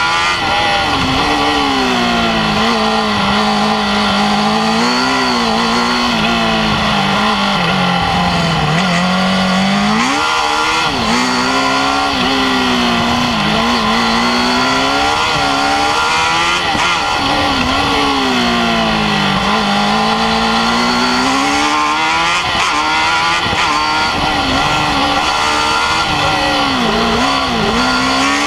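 Formula Student race car's engine heard from on board, revving hard and easing off again and again as the car laps. The pitch climbs, then falls away when the driver lifts and shifts for the corners.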